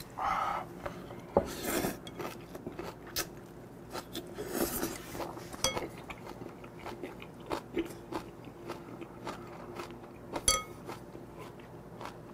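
A person chewing a big mouthful of spicy seasoned octopus with crisp vegetables, close to the mic: wet smacking and crunching clicks all the way through. There is a short slurp as the food goes in near the start, and another noisy breath or slurp about halfway.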